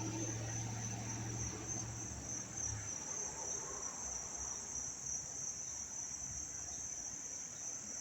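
A dense chorus of crickets chirping, a cacophony of chirping blended into one steady, high-pitched trill. A low hum underneath fades out about three seconds in.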